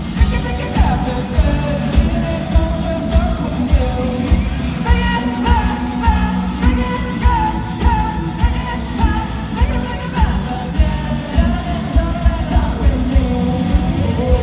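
Live rock band playing with sung vocals over a steady, driving drum beat.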